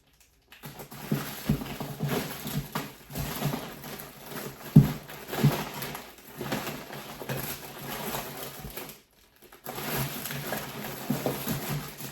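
Irregular knocks, taps and rustling from plastic kitchen gadgets and their packaging being handled, with one sharp knock about five seconds in.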